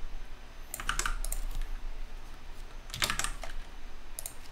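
Typing on a computer keyboard: two short bursts of keystrokes, about a second in and again about three seconds in.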